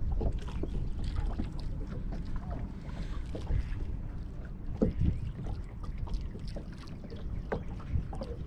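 Wind rumbling on the microphone and small waves lapping against a bass boat's hull, with a few scattered knocks.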